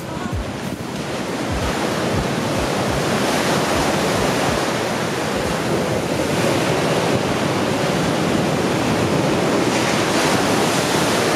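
Sea surf breaking and washing up a sandy beach in a steady rush, with some wind on the microphone.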